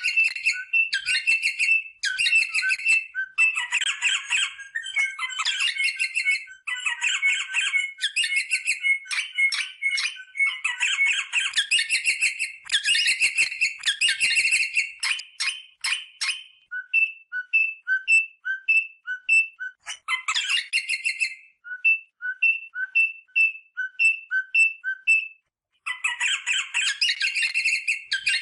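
Rosella parrot calling: bursts of chattering whistles and squawks, then a long run of short, evenly spaced whistled notes at two pitches, before the chattering starts again near the end.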